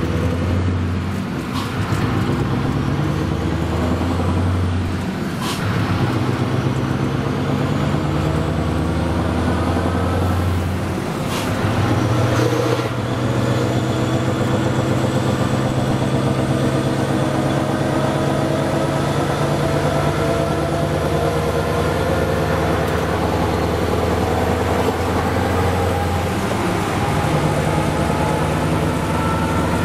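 Scania V8 truck engine running under way, heard from inside the cab, with an open exhaust pipe. Its note shifts a few times, as at gear changes, and a few short clicks sound in the first half.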